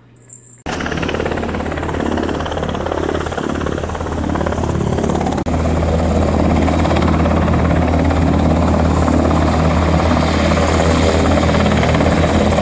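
Helicopter running on the ground with a loud, steady rotor and engine noise, which starts abruptly about a second in.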